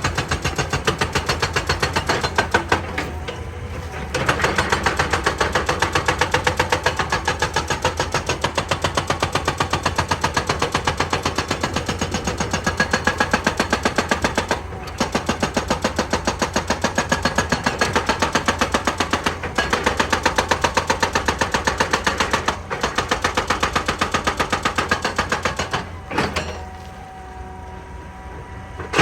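Excavator-mounted hydraulic breaker hammering rock in a rapid, steady rattle of blows over the running diesel engine, with a few short pauses. Near the end the hammering stops and only the engine is heard running.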